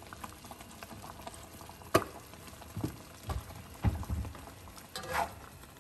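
Thickened tomato, beef and egg sauce simmering in a wok, bubbling and popping softly. A sharp click about two seconds in, and a few low knocks soon after.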